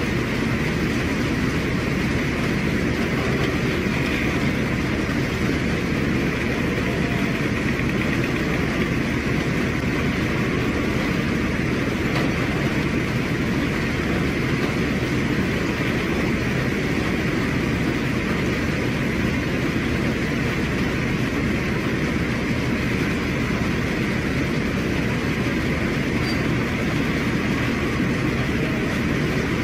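Continuous rumbling noise aboard a ship in a heavy storm: wind and sea noise over a low, steady hum. It stays even throughout, with no distinct wave impacts.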